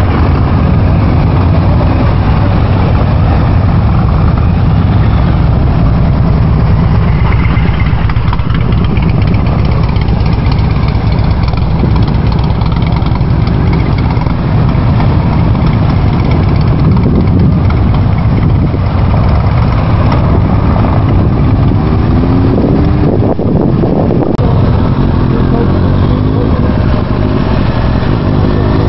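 Motorcycle engines running at low speed over a loud, steady low rumble. Near the end the engine pitch rises and falls several times as the throttle is worked.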